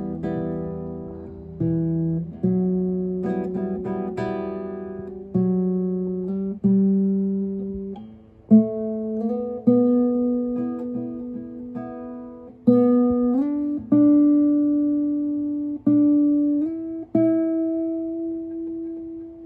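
Yamaha NTX-900FM nylon-string cutaway guitar played unplugged for an acoustic sound test, fingerpicked: a slow melody of single notes and chords, each left to ring and fade, with a few notes slid upward in the second half.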